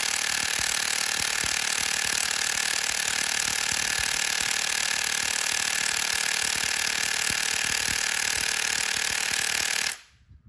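Brushed 12V cordless impact wrench (Nati EZT611) hammering continuously against a socket held fast by an adjustable wrench: a very loud, rapid metallic rattle at full stall load, drawing about 20 A. It cuts off abruptly about ten seconds in.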